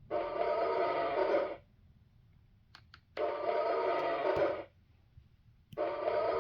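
Fisher-Price Great Adventures Magic Castle toy's small electronic speaker playing the same short recorded sound clip three times, each about a second and a half long. The plastic figures click onto the castle between the clips; each figure sets off the identical sound.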